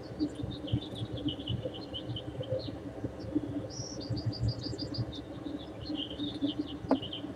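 Small birds chirping and twittering in quick runs of short, high notes that shift in pitch, over a low rumble, with one sharp click near the end.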